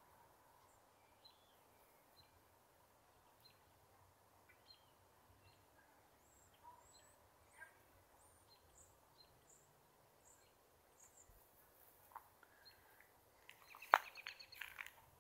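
Faint, scattered high bird chirps over a quiet outdoor hiss, with a louder, sharper cluster of chirps and clicks near the end.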